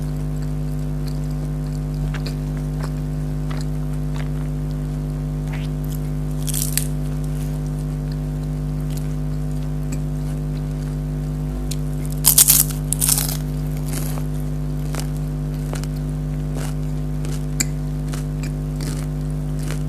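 Chewing and biting into crispy fried food, scattered crunches with a louder cluster of crunches a little past the middle. A steady low hum runs underneath.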